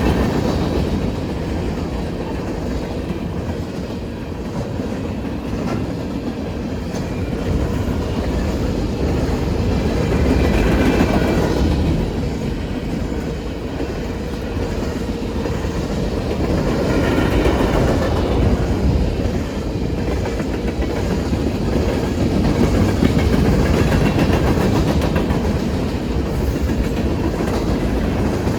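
Norfolk Southern manifest freight train rolling past, its cars' wheels clattering steadily over the rail joints, the noise swelling and easing a few times.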